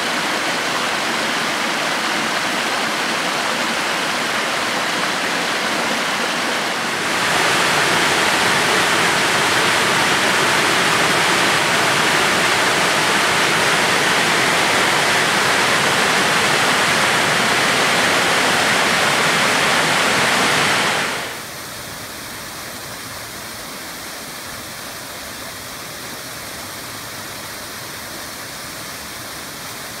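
Waterfalls: a steady rush of water over rock. It jumps louder about a quarter of the way in and drops clearly quieter about two-thirds of the way in, where a faint steady high tone sits over the water.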